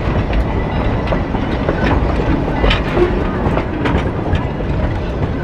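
Restored 19th-century narrow-gauge railroad cars rolling past, a steady rumble with the wheels clicking and clanking over the rail joints; one sharper clank comes a little under three seconds in.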